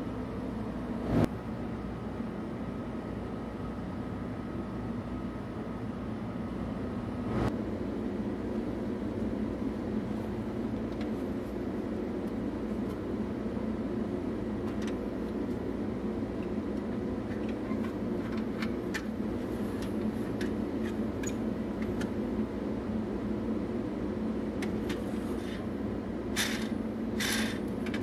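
A steady low hum runs throughout. Over it come a sharp knock about a second in and a softer one about seven seconds in, then light clicks and a few short scraping rustles toward the end, as gloved hands handle a rusty metal toy cement mixer truck.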